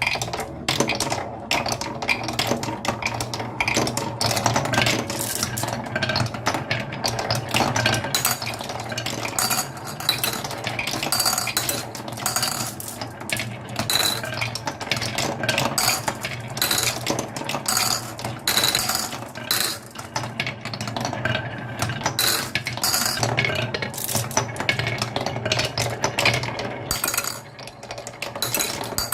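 Many marbles rolling and clattering down a marble run, a dense run of clicks and clacks as they strike the track and each other.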